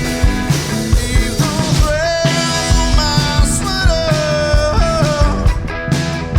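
Rock music with a steady drum beat, bass and guitar, and a bending melodic lead line over it from about two seconds in.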